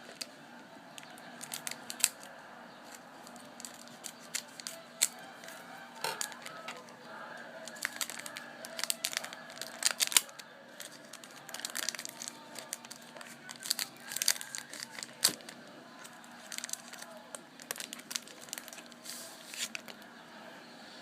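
Trading card packs being torn open and their wrappers crinkled, with irregular sharp crackles and snaps throughout.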